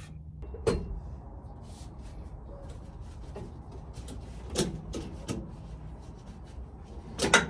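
Steel square-tube cross brace being handled and set against a car body: a few light knocks and rubs of metal, with a sharper clank near the end.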